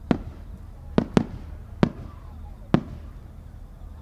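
Aerial firework shells bursting: five sharp bangs, two of them close together, spread unevenly over about three seconds, each trailing off in a short echo.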